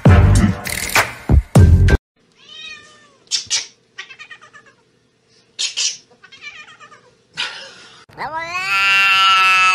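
Music with a beat for about two seconds, cut off suddenly; then a pet vocalising in short, arching, whine- or meow-like calls, and from about eight seconds one long, drawn-out call held at a steady pitch.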